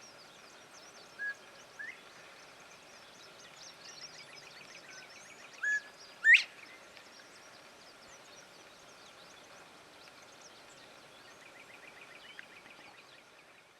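Northern bobwhite calling "bob-white" twice: a short flat whistle followed by a sharply rising whistle, first about a second in, then again, much louder, about six seconds in. Other birds chirp faintly throughout, with a fast trill near the end.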